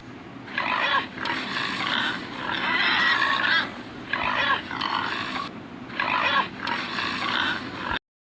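Domestic pigs grunting and squealing in a run of noisy calls that stops abruptly about eight seconds in.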